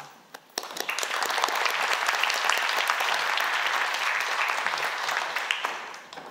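Audience applauding, starting about half a second in and fading out near the end.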